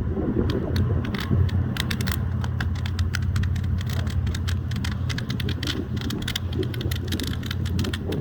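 A steady low engine hum, like a vehicle idling, with many sharp, irregular clicks and crackles scattered over it, several a second.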